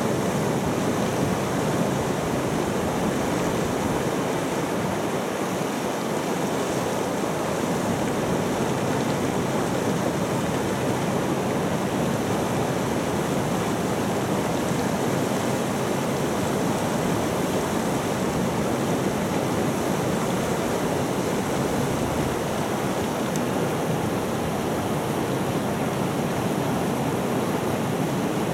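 An ice-cold mountain river rushing steadily nearby, its water noise even and unbroken.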